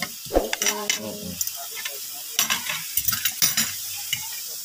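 Metal spoon and fork clinking and scraping against a plate as rice is scooped, in two clusters of sharp clicks: about half a second in and again around three seconds in.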